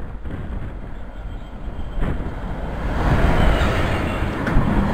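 Class 66 diesel locomotive with its two-stroke EMD engine hauling a freight train past the platform. The rumble of the locomotive and its wagons builds and grows much louder about three seconds in as the train goes by.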